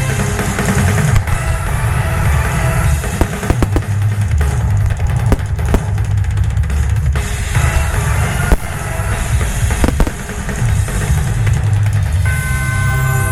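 Rapid barrage of fireworks bursts: many sharp bangs over a continuous low booming rumble. Accompanying music comes back through near the end.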